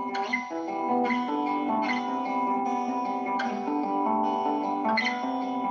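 Background music led by a plucked guitar, with new notes struck about every second.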